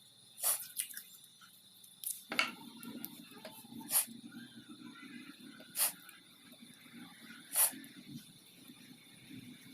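Handling and tool noise from repair work on a small transformer: a series of short, sharp scrapes and clicks, one every second or two, over a faint steady hiss.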